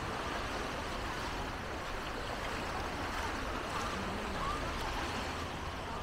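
Steady outdoor background noise with faint, distant chatter of voices.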